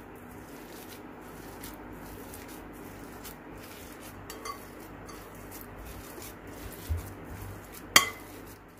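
Boiled potatoes being mashed with a metal wire potato masher in a glass bowl: soft, repeated strokes of the masher pressing and scraping through the potatoes, with one sharp clink near the end.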